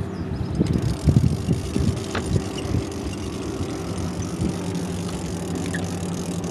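Boat motor running steadily at low speed, a constant low hum, with wind buffeting the microphone in irregular gusts during the first few seconds.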